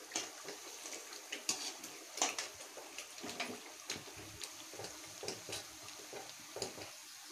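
Hot oil sizzling as fried vadai are lifted out, with irregular light clinks and knocks of a metal spoon against the frying pan.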